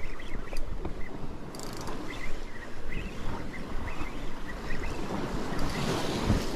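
Wind buffeting the microphone over sea surf washing against rocks, with a wave breaking on the rocks near the end.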